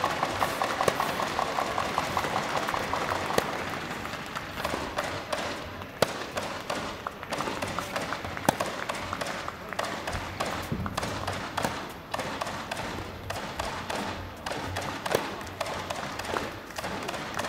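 Tennis rally on an indoor hard court: racket strikes and ball bounces as sharp, irregular knocks, with footsteps, in a large arena. A murmur of voices lies under the first few seconds.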